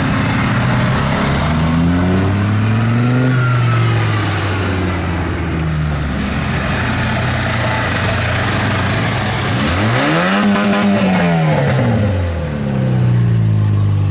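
Tractor engine running and revving. It picks up speed about two seconds in and then holds steady. About ten seconds in it revs sharply up and drops back, then picks up again near the end.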